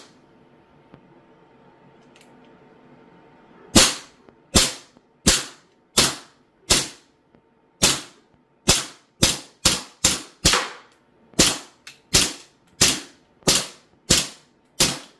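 Sig Sauer 1911 Emperor Scorpion CO2 BB pistol with blowback firing about seventeen shots. Each is a sharp pop that dies away quickly. The shots start about four seconds in at roughly one a second and come quicker in the middle.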